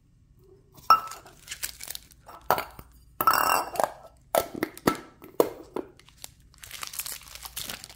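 Foil Pokémon booster packs crinkling and crackling as they are pulled out of a metal Poké Ball tin, with sharp clicks and knocks from handling the tin. The sharpest knock comes about a second in, and the longest crackle comes a little past the middle.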